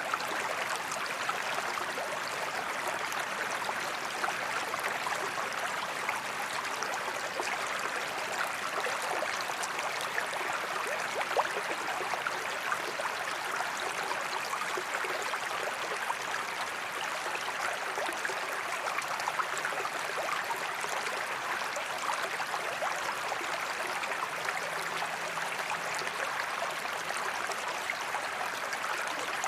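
Forest creek running and babbling steadily: a constant watery rush flecked with many small splashes and gurgles.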